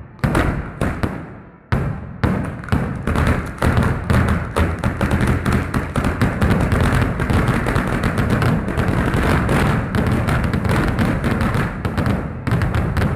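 Firecrackers exploding at street level: a few separate bangs, then from about two seconds in a dense, near-continuous volley of rapid bangs, thinning back to separate bangs near the end.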